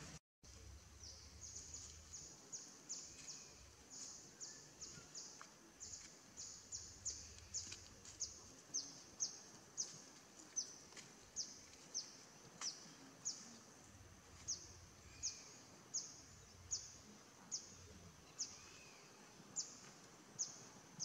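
A bird calling over and over: a short, high note that falls in pitch, repeated evenly about one and a half times a second.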